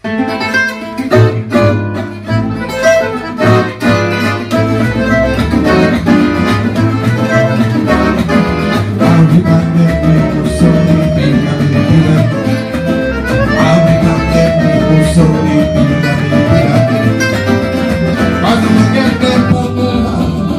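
Gypsy jazz band playing an instrumental passage: acoustic guitars picking and strumming with accordion and upright double bass. It starts suddenly with crisp plucked chords in the first few seconds, then settles into a steady groove.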